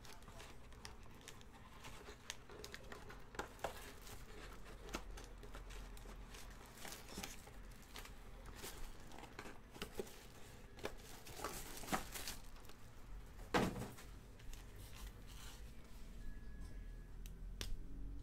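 Foil trading-card packs, plastic wrap and a cardboard hobby box being handled: scattered rustling, crinkling and tearing sounds as packs are pulled out, with louder handling noises about 12 and 13 seconds in.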